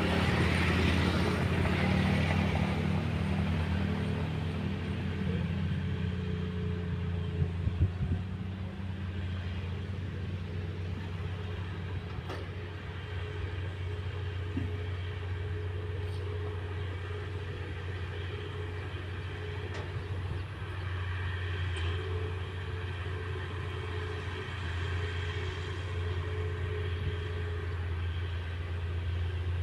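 Diesel engines of heavy earthmoving machinery working soil, a steady low drone that is louder and busier over the first few seconds and then settles. A few sharp knocks come about eight seconds in.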